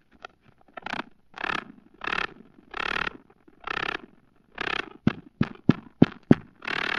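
Wolf spider purring, the vibration a male makes in courtship to attract a female. It comes as rhythmic raspy scraping bursts about every 0.7 seconds, broken about five seconds in by a quick run of five sharp clicks, about three a second, which are the loudest part.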